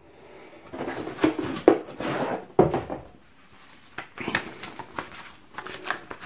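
Paper instruction leaflets and cardboard packaging being handled and rustled, in irregular bursts with a few sharp knocks.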